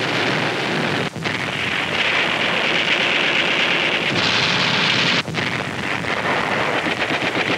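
Dense, steady roar of bombardment sound effects on an old newsreel soundtrack, with no single shot standing out. The roar drops out briefly about a second in and again about five seconds in.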